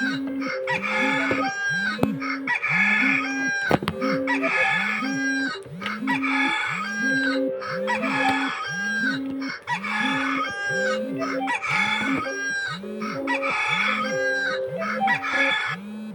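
Device alarm ringtone with a rooster theme: a short farmyard pattern of crowing and clucking, looped about once a second.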